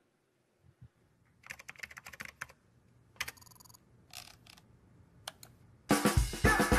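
Short runs of keyboard-typing clicks, with a brief electronic beeping chirp between them, from a teaser soundtrack. Loud music with a drum beat comes in near the end.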